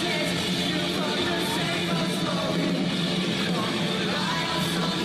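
Live rock band playing loud, with distorted guitars, drums and a lead vocal, recorded from within the crowd at a concert.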